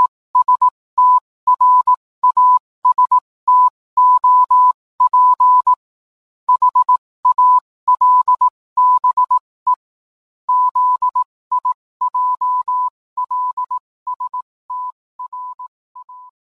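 A steady electronic beep tone keyed on and off in short and long beeps, grouped like Morse code, fading out over the last few seconds.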